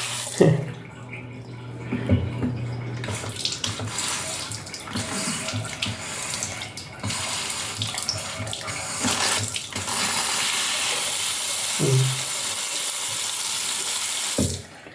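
Tap water running into a sink, splashing unevenly with small knocks as something is rinsed under the stream. About two-thirds of the way through the flow turns steady and louder, then stops abruptly just before the end.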